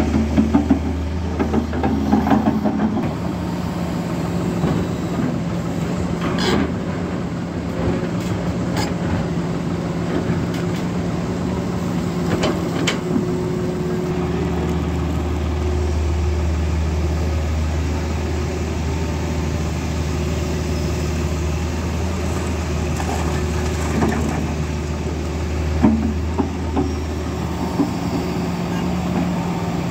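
Diesel engines of a Tata Hitachi Zaxis 220 LC excavator and a farm tractor running steadily. The low drone grows heavier about halfway through and eases again near the end, with a few scattered sharp knocks.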